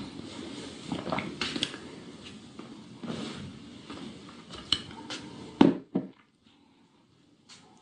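Close handling noises: rustling and light clattering in bursts, with one sharp loud knock a little past halfway, then near silence.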